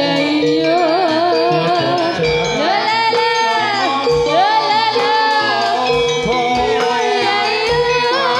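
Javanese gamelan music for a jathilan dance. A sinden sings a wavering, gliding melodic line over sustained metallophone tones, with irregular low drum strokes.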